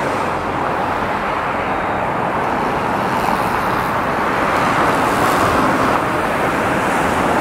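Steady road-traffic noise: a dense, even rush that grows slightly louder.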